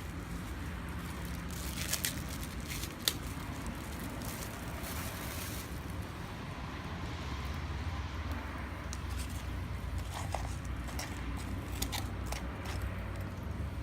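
Wood fire crackling, with a few sharp pops, over a steady low rumble.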